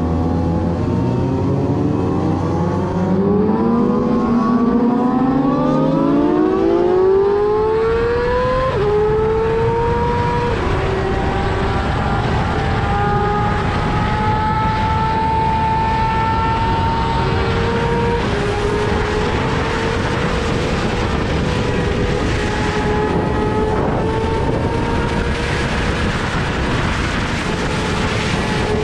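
Yamaha R6's 599 cc inline-four through an Akrapovič full exhaust system, revving up hard under acceleration with two quick upshifts about nine and ten and a half seconds in, then holding high revs at a steady cruise. Heavy wind rush runs underneath.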